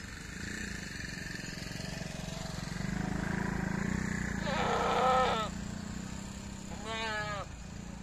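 Goats bleating: one long, wavering bleat about halfway through, the loudest sound, and a second, shorter bleat near the end, over a steady low hum.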